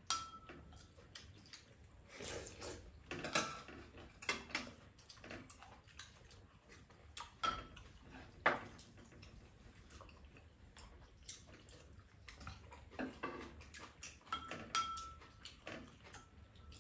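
Spoons and chopsticks tapping and scraping against ceramic bowls during a meal: scattered light clicks at irregular intervals, some with a brief ring.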